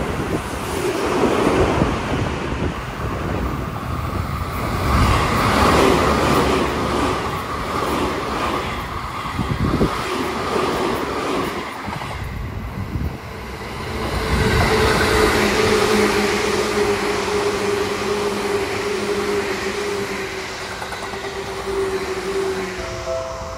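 Seibu Shinjuku Line electric commuter trains passing at speed one after another, a loud rush and rumble of wheels on rail. In the later pass a steady pitched hum runs under the wheel noise.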